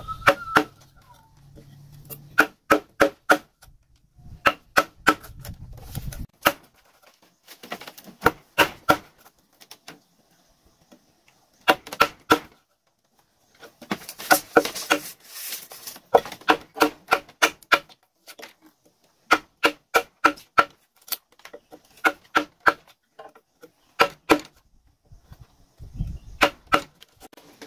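Repeated sharp knocks of a tool striking a wooden pole, in bursts of several quick blows with short pauses between, each knock with a brief woody ring.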